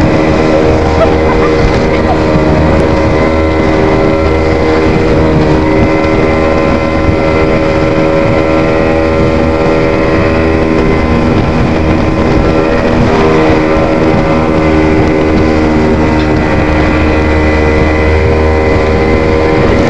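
Speedboat engine running steadily at cruising speed, one even pitch that holds without revving up or down, with wind noise on the microphone.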